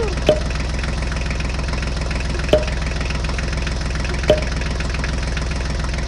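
Tractor engine idling with a steady, even low chug, a sound effect added over the picture of a toy tractor. Three short sharp clicks sound over it.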